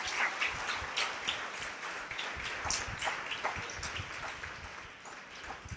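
A small group of people clapping, several claps a second, thinning out and dying away toward the end.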